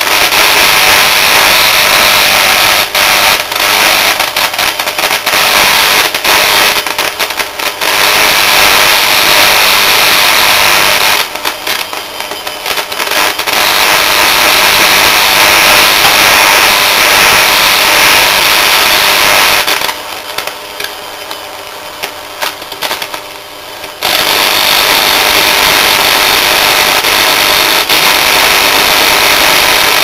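Washing machine universal motor, fed from a microwave oven transformer, running flat out with heavy arcing at its brushes: a loud, harsh, crackling running noise. It falls quieter twice for a few seconds, about a third of the way in and again past two-thirds, then comes back to full level.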